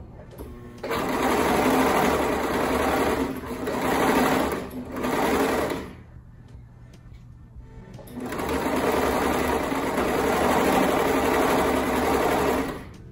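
Brother four-thread serger (overlock machine) stitching and trimming fabric in two runs: the first from about a second in to about six seconds, easing off briefly twice, the second from about eight seconds in until just before the end.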